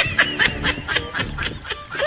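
Ducks quacking: a rapid run of short calls, several a second.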